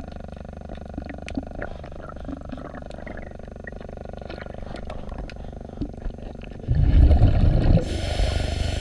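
A diver's breathing regulator underwater: a loud burst of exhaled bubbles about seven seconds in, then the hiss of an inhalation. Under it runs a low steady rumble with scattered clicks.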